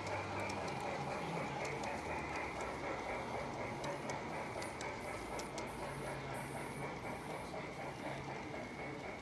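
Large-scale model steam locomotive running along garden railway track toward the listener: a steady mechanical running noise with sharp clicks from the wheels and track. In the second half a rhythmic high hiss comes about twice a second.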